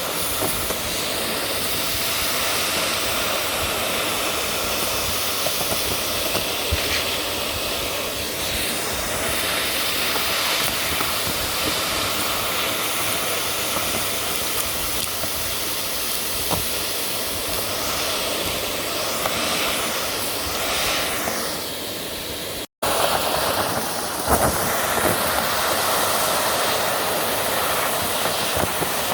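Vacuum cleaner running steadily on carpet, a constant rushing hiss with a faint motor whine; it drops out for an instant about three-quarters of the way in and carries on.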